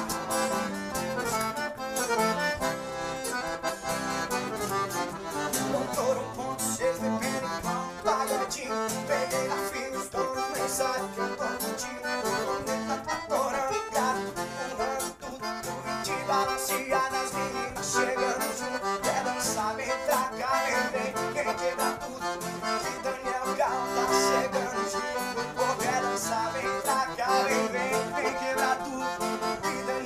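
Instrumental break in a sertanejo song: a button accordion plays the melody over acoustic guitar accompaniment.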